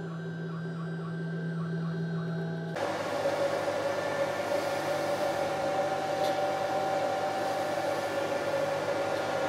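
CNC router spindle running steadily while its 8 mm radius cutter mills MDF. About three seconds in, the sound changes abruptly to louder, noisier cutting with a different pitch.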